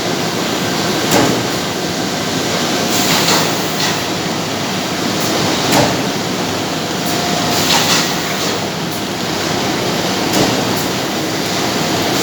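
Paper edge board production machine running: a steady mechanical din with short, irregular clacks every second or two.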